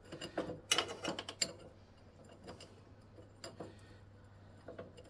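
Steel #41 roller chain clinking as it is handled: a quick cluster of sharp metal clicks in the first second and a half, then a few scattered single clicks.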